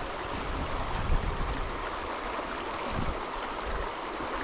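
River water flowing steadily over a shallow gravel riffle.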